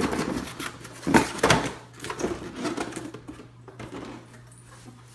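Box contents being handled and unpacked: irregular rustling and light knocks of packaging, with a couple of louder knocks about a second in.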